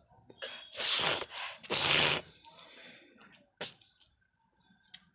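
A person hawking up phlegm and spitting into a cup: two harsh, noisy bursts about a second apart, followed by a few short sharp clicks.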